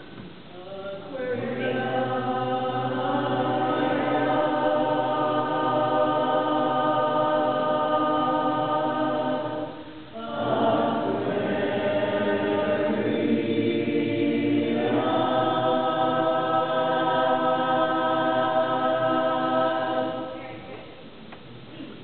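Women's barbershop chorus singing a tag a cappella in close harmony: long sustained chords, a brief break about ten seconds in, then another long held passage that fades away near the end.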